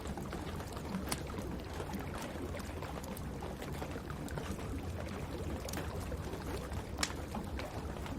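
Wood fire crackling, with scattered sharp pops (the clearest about a second in and near the end), over a steady hiss of rain.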